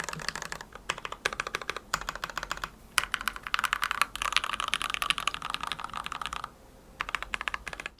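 Typing on a hand-wired mechanical keyboard with Krytox 205g0-lubed Gateron Milky Black linear switches in a stacked acrylic case. Fast keystrokes come in bursts separated by short pauses, with the longest unbroken run in the middle.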